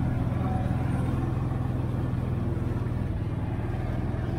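Side-by-side utility vehicle's engine running at a steady speed as it drives across the pasture, heard from the seat.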